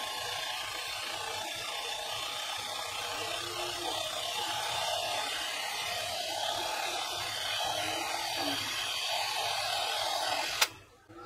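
Mini DV tape rewinder (DV-90 Digital Video Winder) running at high speed: a small motor's steady whir as it spins the cassette. It cuts off with a sharp click about ten and a half seconds in.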